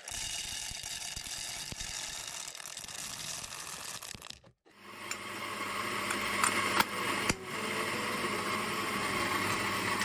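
Anfim V.240-50 doser coffee grinder running steadily, grinding espresso beans. The sound cuts out for a moment about halfway through and then resumes with a low motor hum, with a couple of sharp clicks.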